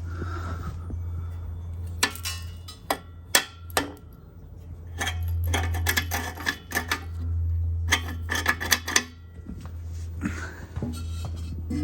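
Light metal clinks and clatters in several quick clusters, over a steady low hum.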